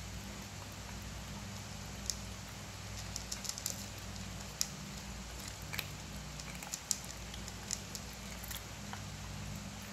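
Cats eating dry cat food from plastic bowls: irregular sharp crunches and clicks of kibble being chewed, over a steady low hum.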